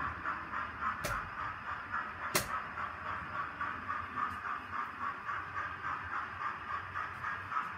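Model train running on the layout track: a steady rhythmic clatter of about five beats a second, with two sharp clicks about one and two and a half seconds in.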